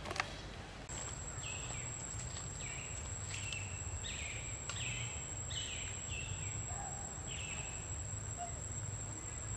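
Woodland ambience: a steady, high-pitched insect trill, with a bird repeating a short falling call about eight times. A single knock sounds right at the start.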